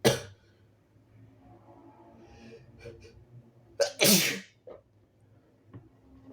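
Two harsh human sneezes from a person who is sick: a short sharp one right at the start, then faint breathy intakes building up to a louder, longer sneeze about four seconds in.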